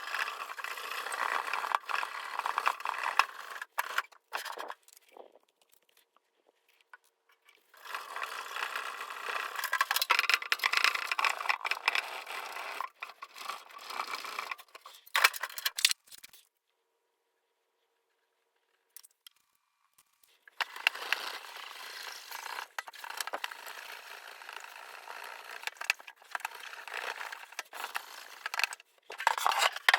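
Spray paint being scraped or scrubbed off the steel Sawzall case by hand, in three spells of dense, crackly scraping with short pauses between.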